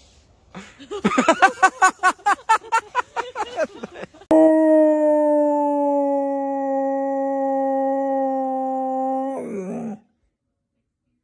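Dog's voice: a quick run of yips for about three and a half seconds, then a long steady howl of about five seconds that drops in pitch at its end.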